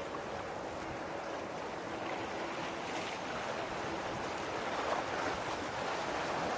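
Boeing 777-200ER on final approach: the distant jet engines make a steady rush that slowly grows louder, with a few faint steady tones running through it.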